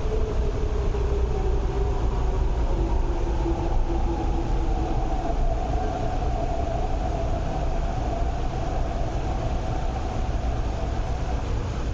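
East Rail Line electric train moving alongside the platform: a steady low rumble with a motor whine, one tone falling slowly in pitch as the train slows and a higher tone that holds until near the end.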